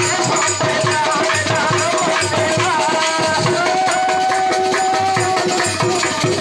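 Bundelkhandi faag folk music: a drum keeps a steady beat under rattling, jingling percussion, with voices holding a sung melody line over it.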